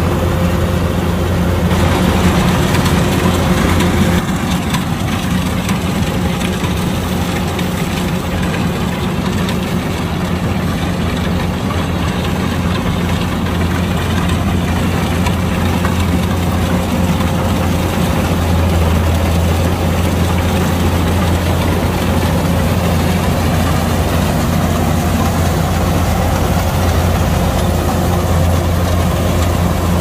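Kubota DC-105X combine harvester's diesel engine running steadily, a little louder for a couple of seconds near the start.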